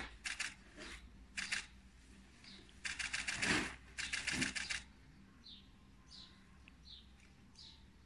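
Cardboard box crackling and scraping as a tiger bites, noses and pushes it, in several short noisy bouts, the loudest about three and a half seconds in. From about five seconds a small bird repeats short falling chirps, a little over one a second.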